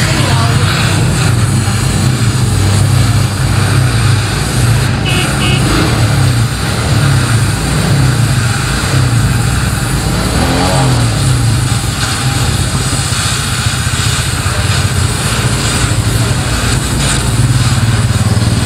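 Gas welding torch burning with a steady, loud roar as its flame works on steel, with a low rumbling hum underneath.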